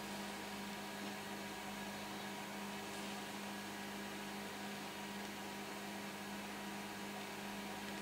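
Steady low hum with a few constant tones over a light hiss: room tone with electrical hum.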